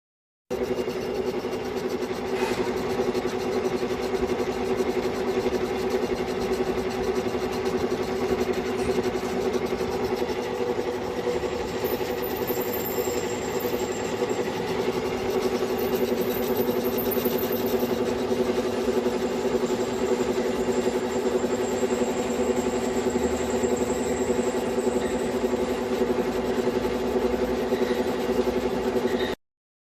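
Lathe running with a steady hum and a fast, even flutter. It starts suddenly about half a second in and cuts off just before the end.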